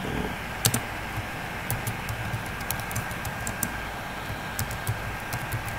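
Typing on a computer keyboard: scattered, irregular keystrokes over a faint steady hiss.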